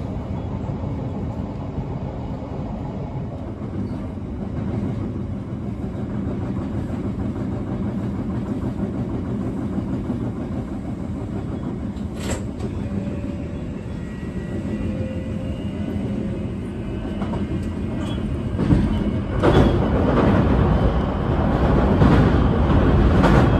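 JR Kyushu 821 series electric multiple unit running at speed, heard from inside the front car: a steady wheel-on-rail rumble with a faint whine from its Mitsubishi SiC VVVF traction equipment. A single sharp click comes about twelve seconds in. Near the end the rumble grows louder and clatters as the train runs onto a steel truss bridge.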